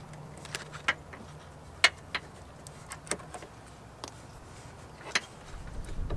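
Scattered sharp plastic clicks and taps, about six, the loudest about two seconds in, as a nylon zip tie is worked around a wiring harness on a truck's door frame. A low rumble comes up near the end.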